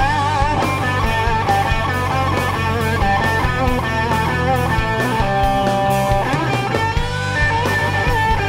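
Electric guitar lead phrase on a humbucker-equipped Les Paul through a Marshall amp, with wide vibrato on held notes and a couple of rising string bends about two-thirds of the way in. It is played over a rock backing of bass and drums.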